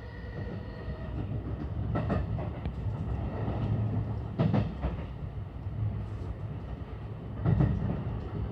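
Inside a JR West 223 series electric train running along: a steady low rumble of wheels on rail, broken three times by a double clack as a bogie's wheels cross a rail joint. A faint high steady whine fades out about a second in.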